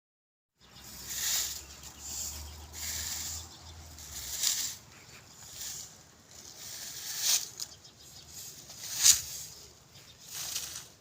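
Broom sweeping the ground: irregular swishing strokes, roughly one a second, one sharper stroke near the end.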